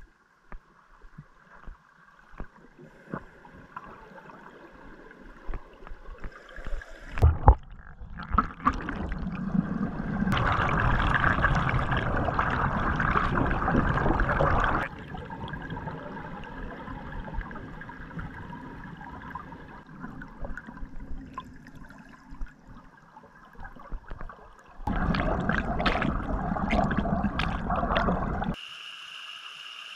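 River rapids rushing and gurgling over rocks, heard underwater, swelling twice into louder spells of whitewater, with a few sharp knocks a few seconds before the first swell.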